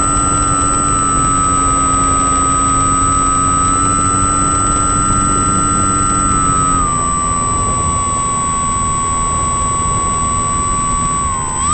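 An engine or motor running steadily under a haze of noise, with a high whine that dips slightly in pitch about seven seconds in and rises sharply again near the end.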